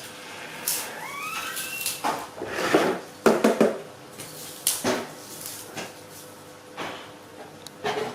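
Irregular clattering and knocks of household objects being handled, with a brief high squeak that rises in steps about a second in.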